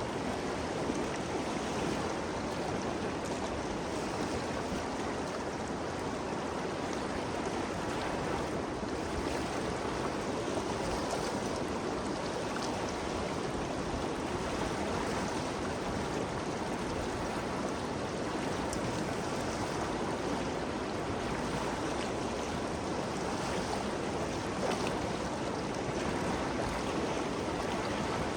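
Ganges River flowing steadily: an even rushing of moving water, with no change across the stretch.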